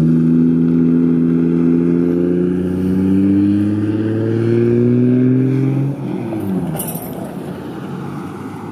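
Straight-piped, single-turbo Toyota 2JZ inline-six in a Lexus IS300 driving away: a loud, steady exhaust drone that sags slightly in pitch, then drops away about six seconds in as the car moves off down the street.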